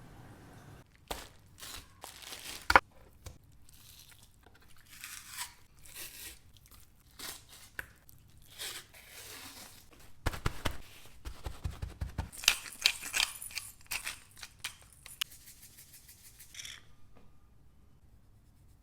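Kitchen food-preparation handling noises: irregular clicks, knocks and rustling or tearing, with one sharp knock about three seconds in and a quick run of clicks later on, stopping shortly before the end.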